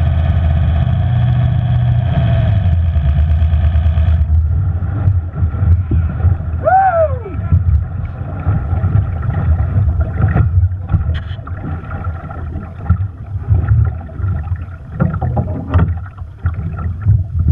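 The 5.0-litre inboard hydroplane's engine running slowly at low throttle, which shuts off about four seconds in. After that the boat drifts in with water sloshing against the hull and wind on the microphone, broken by a brief rising-then-falling tone about seven seconds in.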